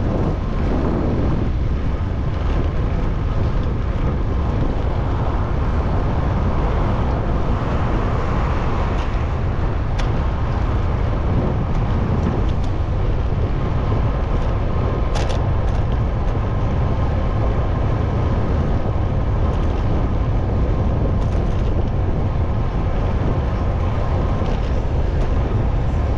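Steady rush of wind on the microphone of a moving bicycle, with city street traffic under it. Two brief sharp clicks, about ten seconds in and about fifteen seconds in.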